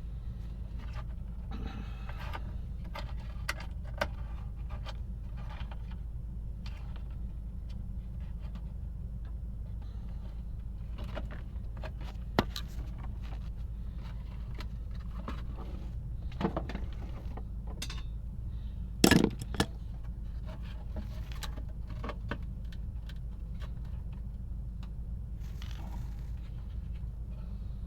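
Scattered clicks, clinks and scrapes of small metal parts and tools being handled, the loudest cluster about two-thirds of the way through, over a steady low hum.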